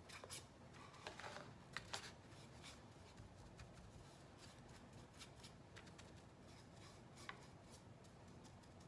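Faint paintbrush strokes and light taps as white paint is brushed onto the edges of a small wooden sign, with a few small clicks and scrapes in the first two seconds and one near the end; otherwise near silence.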